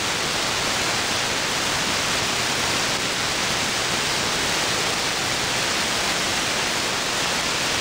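Steady hiss of an AM aircraft-band software-defined radio receiver with no signal on the channel: open-squelch static between air traffic control transmissions.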